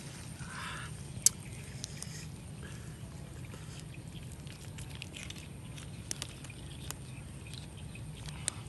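Steady low outdoor rumble with a few scattered sharp clicks, the loudest about a second in.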